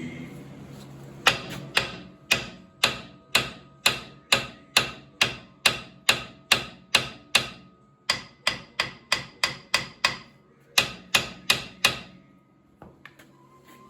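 Steel hammer striking the front axle hub and spindle of a Kubota L3400DT tractor, with sharp ringing metal blows. They come about two a second, pause briefly, come faster, pause again, and end with a last few blows. The hammering is an attempt to drive a hub that is stuck on the spindle.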